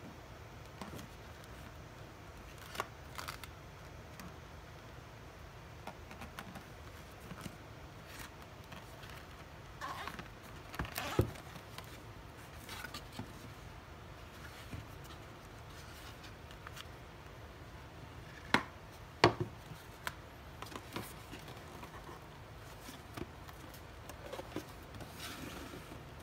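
A cardboard watch box being handled and unfolded, with light scrapes and taps. A few sharp knocks sound as boxes are set down on a wooden table, the loudest two close together about two-thirds of the way through.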